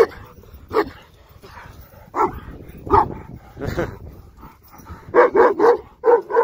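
A large shepherd dog barking hard while lunging against its leash: single deep barks about a second apart, then a quick run of barks about five seconds in.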